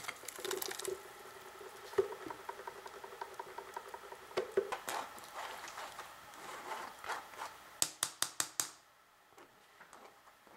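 Thick blended chile sauce poured into a stainless fine-mesh strainer and pushed and scraped through the mesh with a silicone spatula, wet and squelching. Near the end, a quick run of about six sharp taps.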